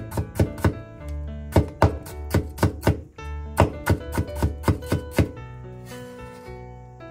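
Chinese cleaver chopping a carrot into thin matchsticks on a bamboo cutting board, quick knife strikes in several runs that stop about five seconds in, followed by a brief scrape as the cut strips are swept onto the blade. Background music plays throughout.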